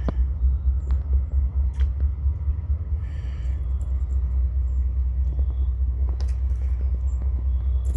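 A steady, deep rumble with a few sharp clicks.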